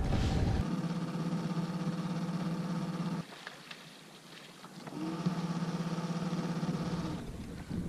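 A boat motor humming steadily at one pitch. It cuts out a few seconds in, stays off for about a second and a half, then starts again and runs until shortly before the end.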